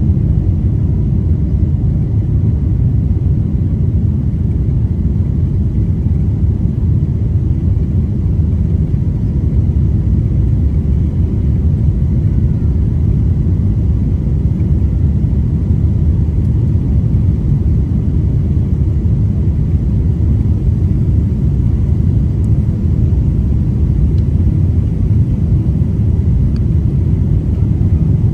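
Airliner cabin noise on approach to landing: a steady low rumble of the jet engines and rushing air, unchanging throughout.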